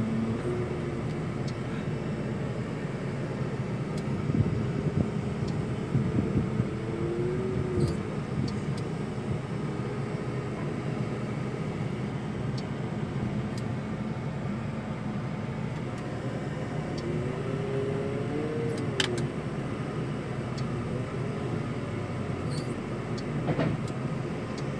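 Volvo L60F wheel loader's diesel engine running steadily under load, heard from the cab, as the hydraulics raise the lift arms and forks. A whine rises and falls twice, and a few sharp clicks and knocks come through.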